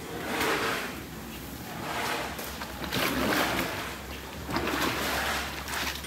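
Water-soaked cattle feed splashing and sloshing as a bucket is dipped into a cement tank of feed slurry and lifted out, in several separate splashing swells.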